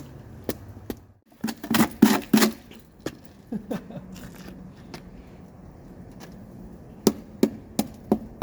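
Footsteps crunching on icy snow crust, with a cluster of loud crunches early and a run of even steps, about three a second, near the end.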